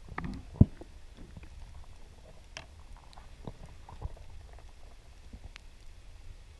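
Underwater ambience recorded by a camera below the surface: a low, muffled water rumble with scattered faint clicks and ticks, and one sharp knock about half a second in.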